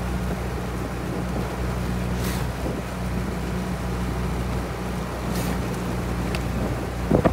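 Small outboard motor of a coaching launch running steadily as it follows a rowing eight: an even low hum, with wind on the microphone and water wash.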